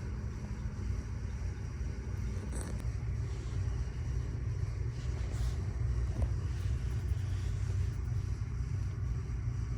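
Kitten purring: a steady low rumble, with a few faint light rustles over it.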